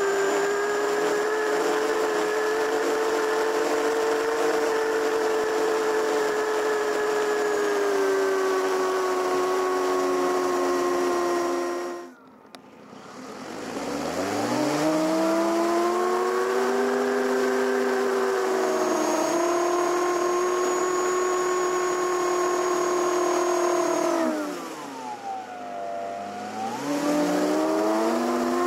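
Brushless electric motor and propeller of an E-flite Piper Cherokee RC plane, heard from onboard, whining steadily at high throttle with a thin high tone above it. About twelve seconds in the motor cuts to near silence, then spools back up with a rising pitch. Near the end it throttles down to a low hum for a couple of seconds and climbs again.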